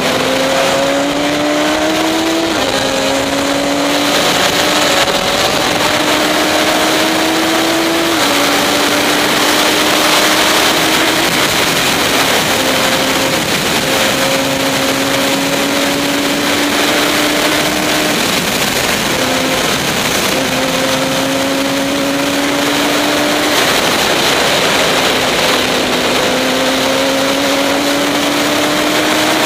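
Radical SR3 race car's high-revving, motorcycle-derived four-cylinder engine under hard acceleration: the pitch climbs steadily, then drops sharply at each upshift, several times over. A steady rush of wind and road noise runs beneath it.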